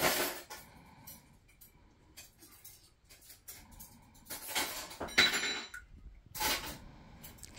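A few short clinks and scrapes of a stick stirring in a small plastic cup of runny slime, in scattered bursts about a second in length.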